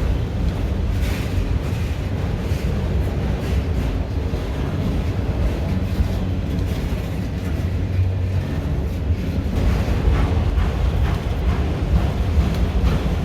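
Long intermodal freight train rolling past with a steady low rumble, wind buffeting the microphone, and scattered short clicks near the end.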